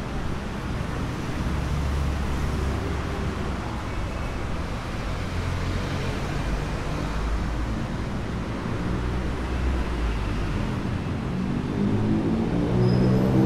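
Street traffic: motor vehicle engines running with a steady low rumble, and one engine growing louder as it draws close near the end.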